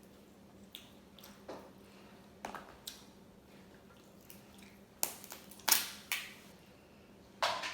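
Crab legs being cracked and eaten up close: a scattered series of sharp shell cracks and clicks with wet, squishy eating sounds, loudest about three-quarters of the way through.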